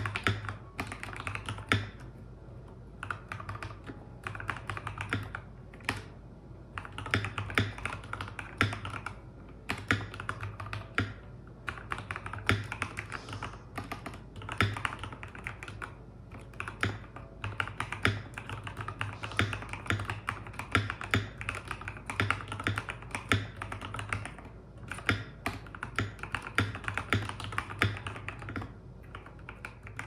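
Typing on a small mechanical keyboard: quick runs of key clicks in bursts, broken by short pauses every few seconds.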